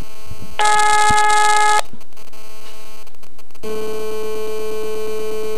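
Telephone ringback tone heard down the line while a call rings unanswered: one steady beep a little over a second long, starting just after the start. A steady hum comes in about halfway through.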